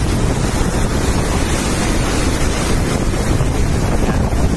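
Floodwater pouring through the open spillway gates of Ukai Dam in a loud, steady rushing roar, with wind rumbling on the microphone.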